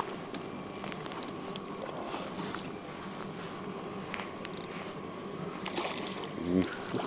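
Water splashing, with a couple of louder splashes, as a large hooked trout is drawn to the landing net at the surface.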